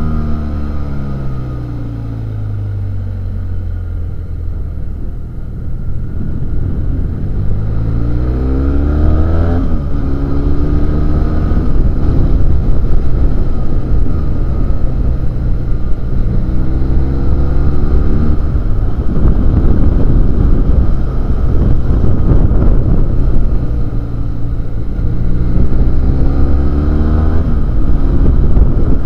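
BMW F800GS parallel-twin motorcycle engine heard from on board while riding. Its pitch falls as the bike slows at first, then it revs up three times, each climb cut off by a sudden drop in pitch at an upshift.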